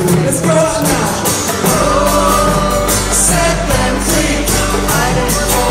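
A live band playing, with acoustic guitar strumming, hand percussion keeping a steady beat, and voices singing over it. A deep bass note enters about two seconds in and holds.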